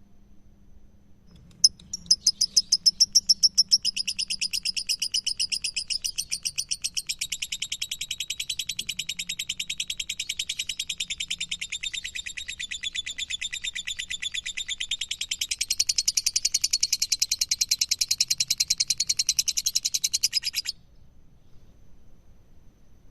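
Lovebird giving a long 'ngekek' chatter: one unbroken string of rapid, sharp, high-pitched chirps repeated many times a second for nearly twenty seconds, which stops suddenly.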